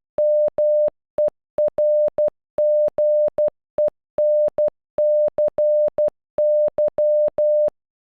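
Computer-generated Morse code audio: a single steady tone beeping in short dots and long dashes, spelling the letters M-E-R-G-E-N-C-Y (-- . .-. --. . -. -.-. -.--) of the word EMERGENCY. The beeps stop about half a second before the end.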